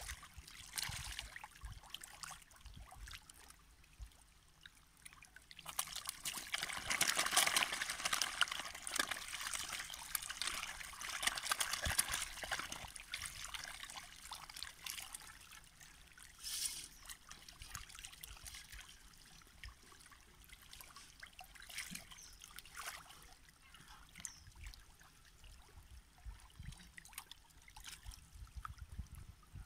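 A dense crowd of feeding catfish splashing and churning at the water's surface. The splashing grows louder about six seconds in and eases off after about seven seconds.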